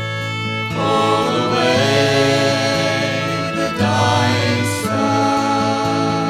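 Folk band playing live: guitars and held instrument notes, with voices singing over them for part of the time.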